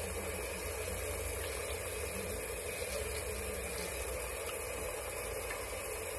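Tap water running steadily into a bathroom sink as it fills.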